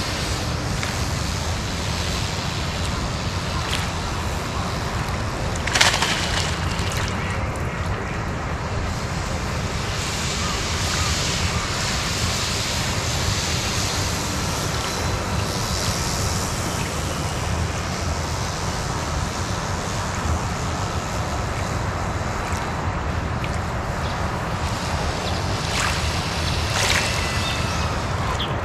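Steady wind noise on the microphone mixed with waves washing on the lake shore, under a faint thin whine from the small electric motor of the radio-controlled plane in flight. A sharp knock comes about six seconds in and a smaller one near the end.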